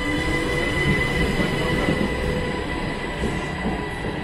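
SNCB AM08 (Siemens Desiro ML) electric multiple unit pulling away from the platform. It gives a steady low rumble with a constant high-pitched ringing tone over it.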